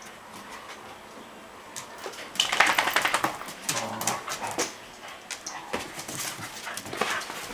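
A dog snoring, with a loud rattling snort about two and a half seconds in and softer snorting breaths after it.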